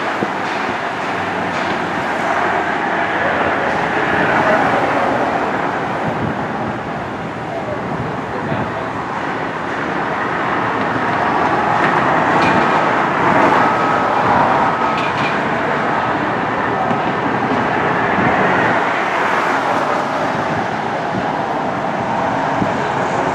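Steady rolling noise of a train running along its track, with no clear rhythm, swelling slightly a few times.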